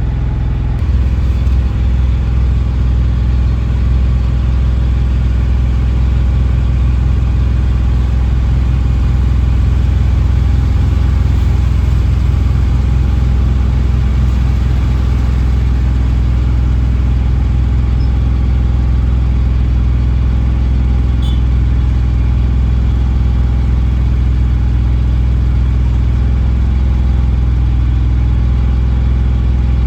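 Mahindra Jeeto BS6 diesel engine running steadily during the DPF cooling-down stage that follows a forced service regeneration. It gets a little louder about a second in.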